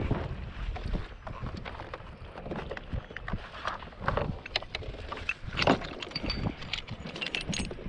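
Wind buffeting a GoPro's microphone on a fishing boat, a constant rumble, with scattered knocks and clatter on the boat, the loudest a sharp knock about halfway through.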